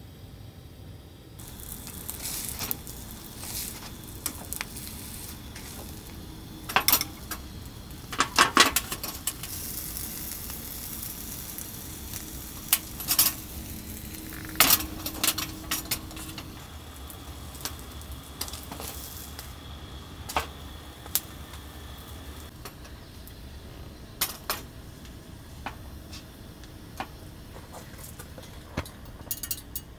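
Metal clinks and clanks of a hinged grill press being handled on a tabletop gas stove, over a steady hiss as a rice cake toasts in the oiled press. The hiss starts a second or two in and stops about two-thirds of the way through; scattered clicks go on after it.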